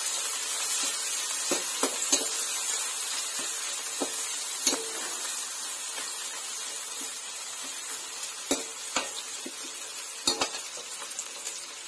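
Sliced onions and red chillies sizzling as they fry in hot oil in a metal kadhai, the sizzle easing slightly over time. A slotted metal spoon clicks and scrapes against the pan now and then as they are stirred, a few sharp knocks clustered together near the end.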